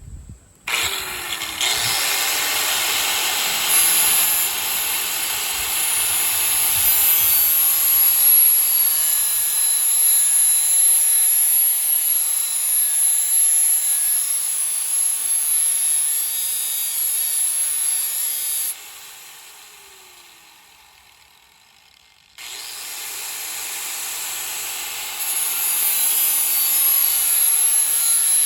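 DeWalt electric sander running with its abrasive grinding along a machete's blade edge. About two-thirds of the way through it is switched off and spins down with a falling whine, then starts again a few seconds later.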